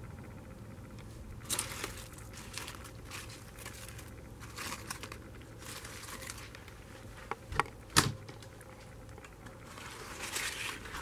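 Torn corrugated cardboard pieces rustling and crinkling in short bursts as they are handled and moved. About two-thirds of the way through there are two sharp taps, the loudest sounds.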